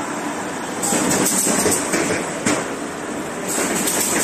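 Automatic corrugated paperboard partition assembler machine running: continuous mechanical clatter with repeated knocks and several bursts of hiss.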